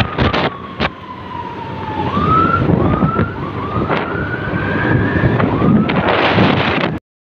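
Riding on a motorbike, with wind buffeting the microphone and road noise, under a single high whine. The whine slides slowly down over the first two seconds, then rises again in several short swoops and one longer rise. The sound drops out abruptly just before the end.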